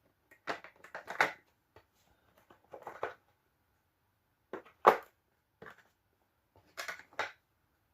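Irregular clicks and knocks of metal tool parts being handled, about eight in all with the loudest knock near the middle: the die blocks of a hand-pumped hydraulic crimping tool being swapped for the 8 mm size.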